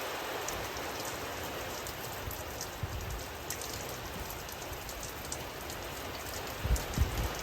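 Steady rain falling, with scattered drops ticking sharply close by. A few low rumbles come in near the end.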